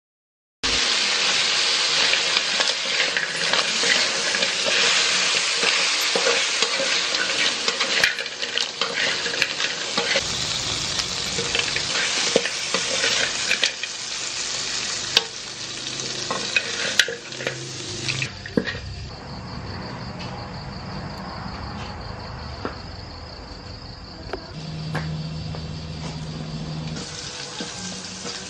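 Crabs frying and sizzling in a hot wok as they are stirred, with sharp clicks and scrapes of a utensil against the metal. About eighteen seconds in the sizzle drops to a quieter frying of chopped garlic in oil.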